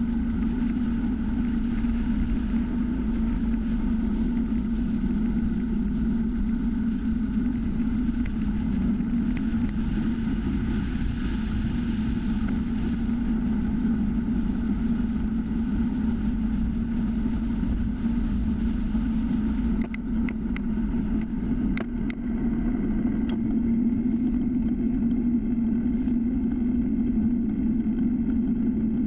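Steady wind rush and tyre rumble from a time-trial bicycle riding at speed on asphalt, with wind buffeting a handlebar-mounted GoPro. A few sharp clicks come about twenty seconds in.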